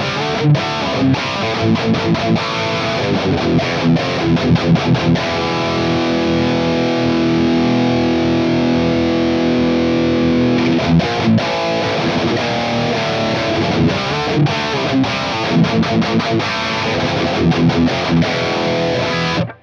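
High-gain distorted electric guitar played through a Mooer Brown Sound preamp pedal (5150-style voicing) into a power amp sim and cabinet impulse response. It plays quick palm-muted chugs, lets a chord ring for about five seconds in the middle, then chugs again and cuts off suddenly just before the end.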